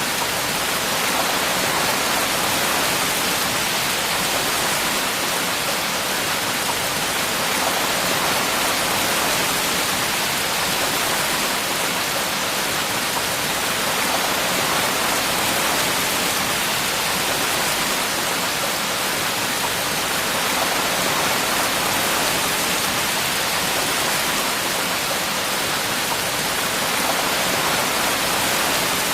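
Steady heavy rainfall, an even hiss with no distinct drops or breaks.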